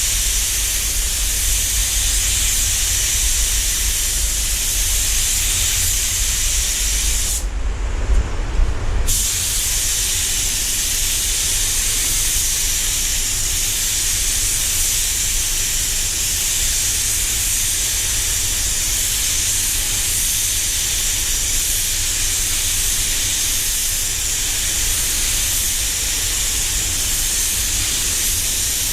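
Walcom Carboni 360 spray gun with a 1.3 mm tip spraying clear coat, a steady air hiss. The hiss stops for about a second and a half, a quarter of the way in, between passes, then resumes. A low rumble runs underneath.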